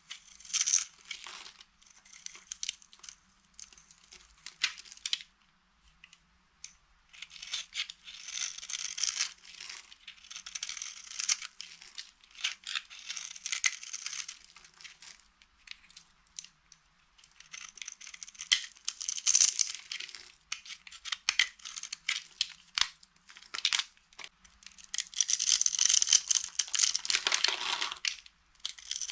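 Dry soap being crushed and crumbled: crisp crunching and crackling in bursts of a few seconds, with short pauses between.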